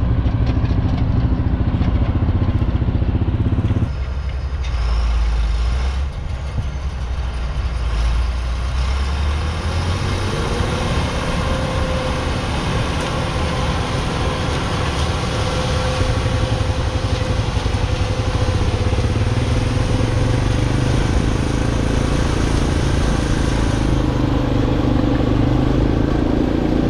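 A motor vehicle driving steadily, its engine humming under continuous road and wind noise; the engine note shifts about four seconds in and again about ten seconds in.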